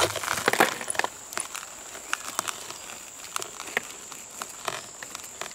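Shattered bulletproof glass clinking and crunching as the cracked panes are handled and shifted, with loose fragments chinking. A cluster of sharp clicks comes in the first second, then isolated clinks every second or so.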